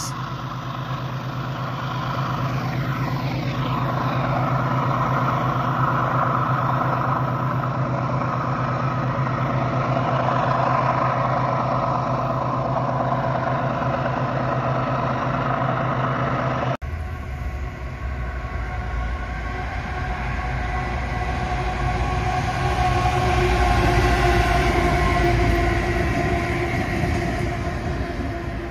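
Diesel-electric freight locomotives running, a steady low engine drone. After an abrupt break about two-thirds of the way in, the locomotives are closer, with a deeper rumble that swells and then eases as they pass.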